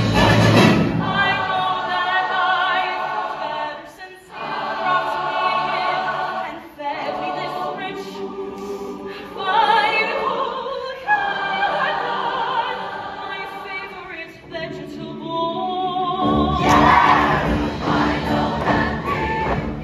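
A large mixed show choir singing sustained chords in several parts, with short breaks between phrases and little or no bass underneath. About sixteen seconds in, a fuller accompaniment with strong bass comes in under the voices.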